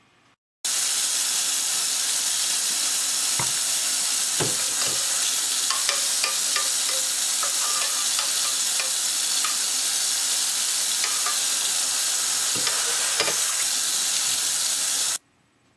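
Kitchen tap water running steadily into a sink while a pot is scrubbed, with a few sharp knocks and clinks of the pot. The sound cuts in abruptly just after the start and cuts off abruptly near the end.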